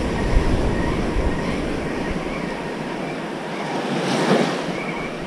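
Surf washing on the beach, with wind buffeting the microphone; the low wind rumble eases after about two seconds.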